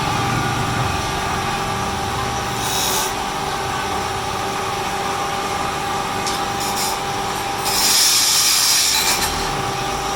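A wood lathe running steadily with a whining motor, and a turning tool cutting the spinning wood in two scraping passes, a short one about three seconds in and a longer, louder one near the end.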